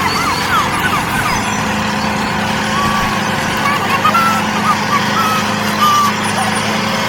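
Small motor of a DIY mini tractor running with a steady hum, with many short high chirps over it.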